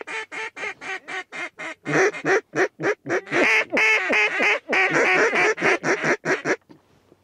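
Duck calls blown by two hunters: a fast, loud run of short quacks, about five a second, with a second call joining in about two seconds in, stopping shortly before the end.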